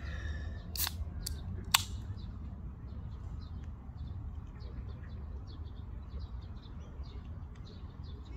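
Small birds chirping over a steady low rumble, with two sharp clicks about one and two seconds in.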